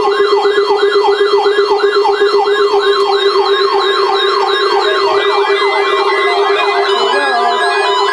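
Weather radio warning alarm test signal: a siren-like sweep repeats about twice a second, each sweep rising then dropping, over a steady tone and a steady lower hum. From about five seconds in, short stepped beeping tones join it.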